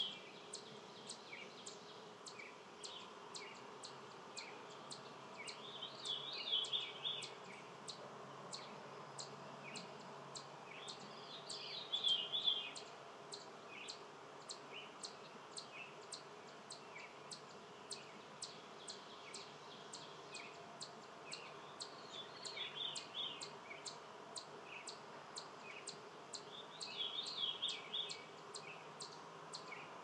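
Outdoor birdsong: a songbird sings a short phrase every five or six seconds, over a steady series of high ticks about two a second.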